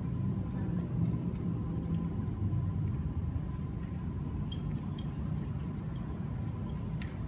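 Steady low rumble of indoor room noise with a faint constant hum, broken by a few light clicks and clinks, the brightest about four and a half, five and seven seconds in.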